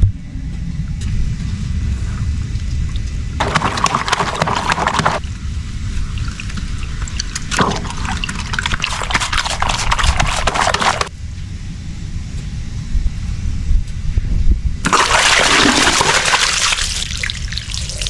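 Water gushing and splashing in three spells of a few seconds each, over a steady low rumble.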